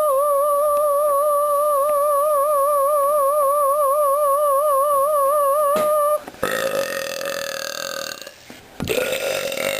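A steady electronic tone with a fast warble in pitch runs for about six seconds and cuts off suddenly. Then come two long, drawn-out burps.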